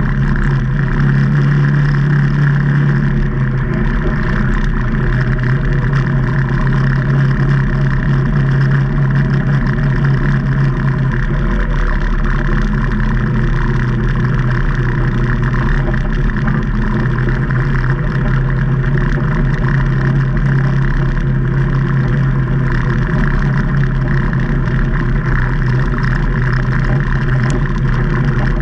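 Can-Am Maverick Trail 800's Rotax V-twin engine running under way at a steady, moderate speed, its note holding nearly constant over a steady hiss.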